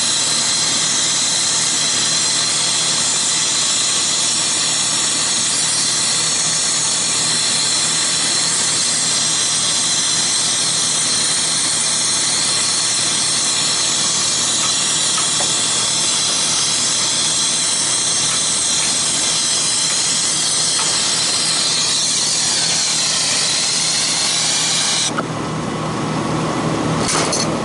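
Torch flame hissing steadily while heating the compressor's line connections. It cuts off suddenly near the end, leaving the hum of running rooftop equipment.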